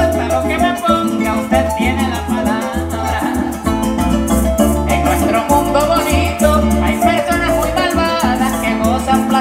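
Live Venezuelan llanera music: a concert harp, a cuatro and an electric bass playing together with maracas shaking the rhythm, and a man singing through a PA at times.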